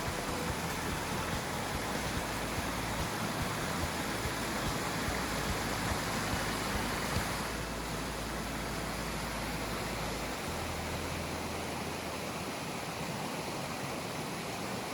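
Rushing water of a stream: a steady, even rush of running water whose tone shifts slightly about halfway through.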